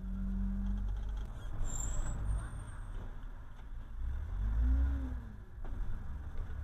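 Low engine and road rumble inside a moving car's cabin, picked up by a dashcam. A steady pitched hum fades out about a second in, and a short hum that rises and falls comes about four and a half seconds in.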